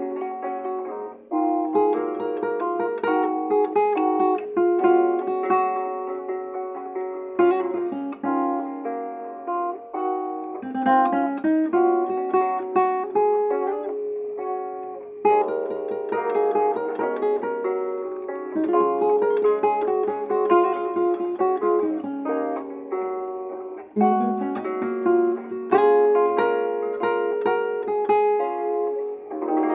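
Guitar music: plucked notes and strummed chords played continuously, with short breaks about a second in and again near the end.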